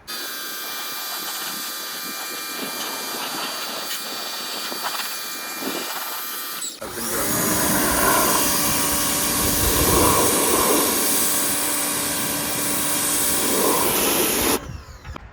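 An electric power tool running steadily with a whine. About two-thirds of the way in it cuts to a louder, harsher stretch of the tool with several surges, which stops abruptly near the end.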